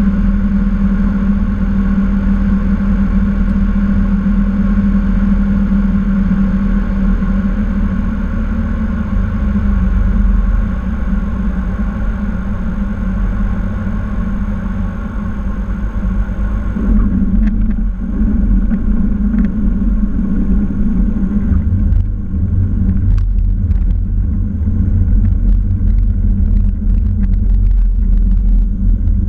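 Cessna TTx's turbocharged six-cylinder Continental engine and propeller droning steadily, heard inside the cockpit during landing. About 17 seconds in, the sound turns to a lower, rougher rumble with scattered knocks as the wheels roll along the runway.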